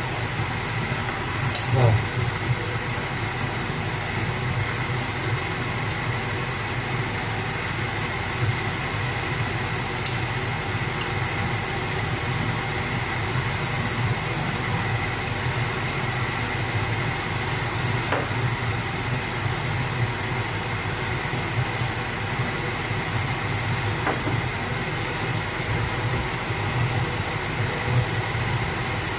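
Steady mechanical hum of a kitchen motor running, with a metal ladle clinking against the soup pot a few times.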